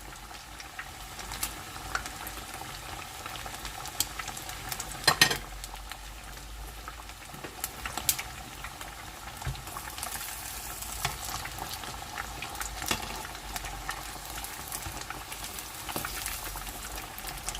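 Pork pieces deep-frying in hot oil: a steady sizzle with scattered pops and crackles. A brief cluster of knocks about five seconds in is the loudest moment.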